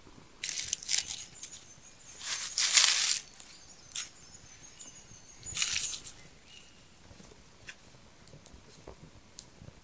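Dry rustling and crunching in several short bursts, the loudest about two to three seconds in: a handful of dried herbs crumbled by hand into a small steel pot of simmering water for tea.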